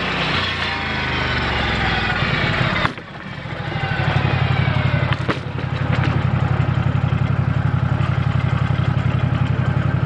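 Portable band sawmill's engine running. About three seconds in, the sound drops off sharply with a click, then builds back and runs on with a steady, even pulsing beat.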